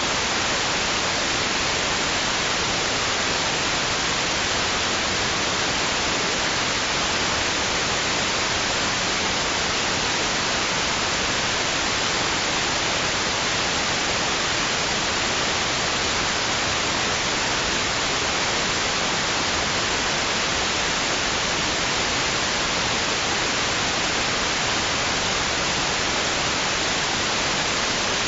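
Steady white-noise hiss for lulling a baby to sleep: an even, unbroken rush, brightest in the upper range, with no rise and fall of waves.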